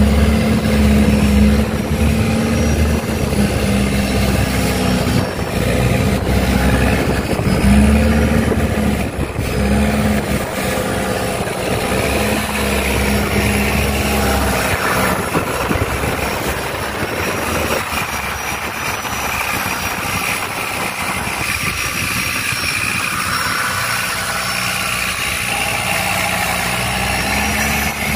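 Longtail boat engine running steadily underway, a loud low drone with water and wind noise rushing over it. The drone eases a little past the middle.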